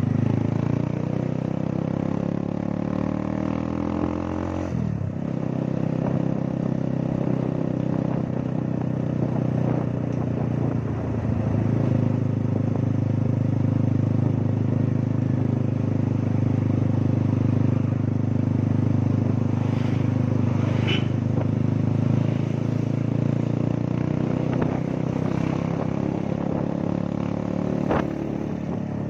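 Motorcycle engine running under way on a ride, heard from the rider's seat. The note climbs over the first few seconds, falls away sharply about five seconds in, then holds fairly steady.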